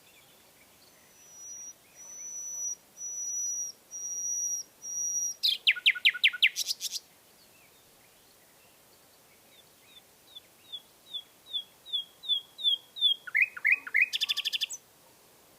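Common nightingale singing two phrases. The first is a run of long pure whistles that grow louder, breaking into a fast, loud trill. After a short pause, the second is a quickening series of short notes, louder as it goes, ending in a rapid rattle.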